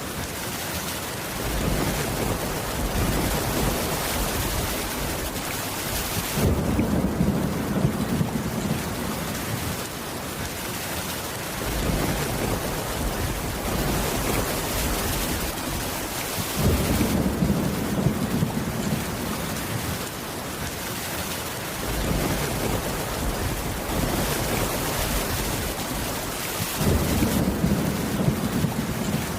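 Steady rain with low rumbling thunder that swells up roughly every ten seconds.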